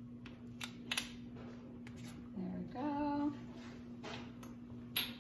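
Light clicks and taps as a spatula knocks scoops of coconut oil into a pan of diced sweet potato, with a woman briefly humming a couple of notes about halfway through. A faint steady hum sits underneath.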